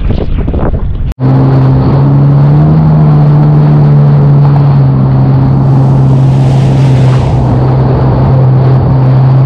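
Wind buffeting the microphone for about a second, then, after a sudden cut, a jet ski running at steady speed over open sea: a steady engine drone holding one pitch, with the hiss of water rushing past.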